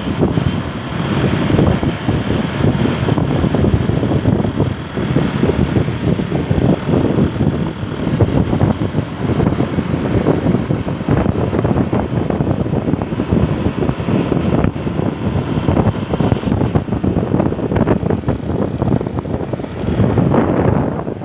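Loud, steady vehicle engine and road noise while riding along at speed.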